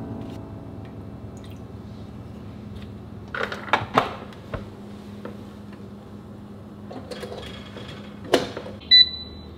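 Tiger rice cooker being handled: the inner pot set in and the lid pressed shut with a few knocks and a click about three to four seconds in, another clunk near the end, then a short two-tone beep from the cooker's control panel.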